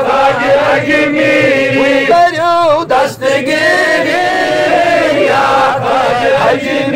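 Men's voices chanting a Kashmiri manqabat, a Sufi devotional song in praise of Khwaja Moinuddin Chishti, together in long drawn-out wavering notes. About two seconds in, one voice's quivering ornament stands out briefly.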